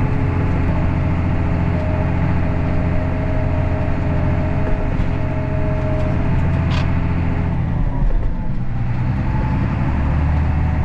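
Tractor engine running steadily under load, heard from the cab, with a steady whine over it for a few seconds. About eight seconds in there is a bump and the engine note changes before settling again.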